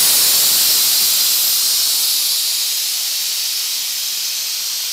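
Air-ride suspension on a 1939 Hudson Big Boy truck being dumped: a long, steady hiss of air venting from the airbags as the truck drops to the ground, slowly growing quieter.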